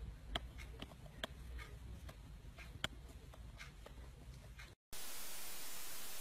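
A few faint, irregular clicks and ticks over a low hum. After a short dropout about five seconds in, a steady hiss of static takes over.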